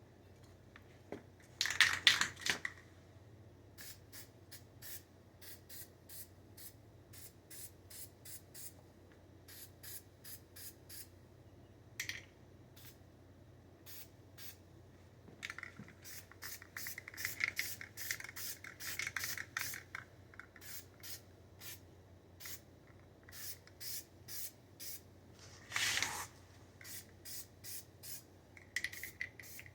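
Aerosol spray paint can hissing in many short, quick bursts, sped up in a time lapse, with a few longer, louder sprays about two seconds in, through the middle, and near the end.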